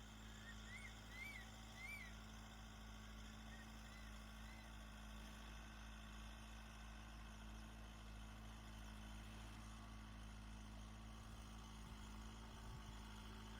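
Crested serpent eagle calling: a run of short, clear, rising-and-falling whistled notes, the first three louder about a second in, then fainter, more distant notes for a few seconds more. A steady low hum runs underneath.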